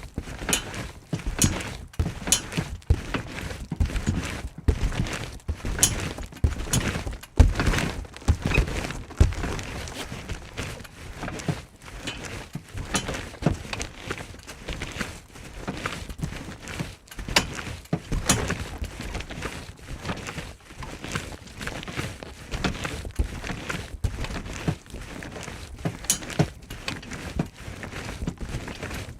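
Trampoline being bounced on: a long run of irregular thuds and knocks from the mat, several a second, some louder than others.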